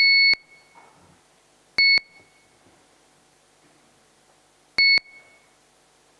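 Electronic voting system beeping to time a council vote: a longer beep ends just after the start, then short beeps about 2 and 5 seconds in, three seconds apart. Each is the same single high electronic tone.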